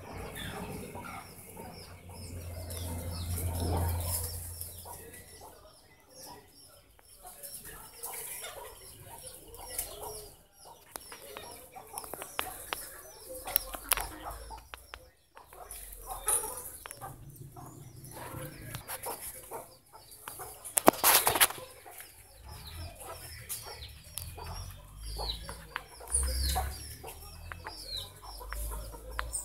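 Birds calling, with many short high chirps throughout, among them fowl such as chickens, and a few sudden knocks or rustles, the loudest about 21 seconds in.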